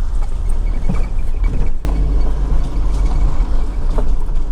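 Car driving along a rough unsealed forest road: a steady low rumble of engine and tyres, with a single sharp knock about two seconds in.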